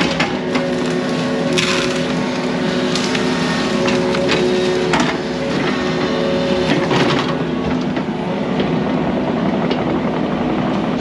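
Yanmar mini excavator's diesel engine running steadily while the machine breaks and crushes small trees and brush, with repeated sharp cracks and snaps of wood.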